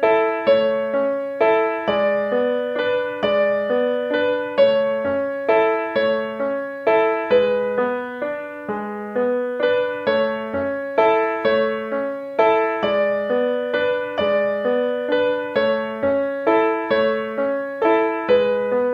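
Background piano music: a steady run of single struck notes at an even pace.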